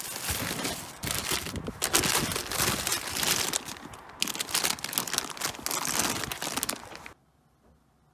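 Plastic packaging and foil-type snack bags crinkling and rustling as hands rummage through shopping in a car boot, irregular and continuous. It stops abruptly about seven seconds in.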